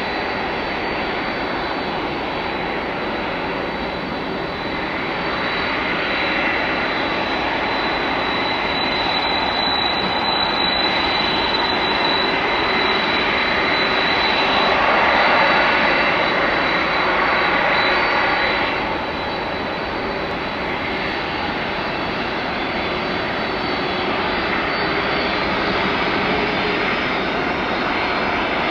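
Jet engines of a Boeing 747-400F freighter running at taxi power: a steady rushing noise with a thin high whine. It swells through the middle and drops back about two-thirds of the way through.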